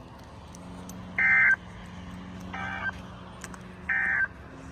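NOAA Weather Radio end-of-message EAS/SAME data bursts, closing the weekly test broadcast: three short, buzzy digital tone bursts about a second and a half apart. A faint steady low hum sits underneath.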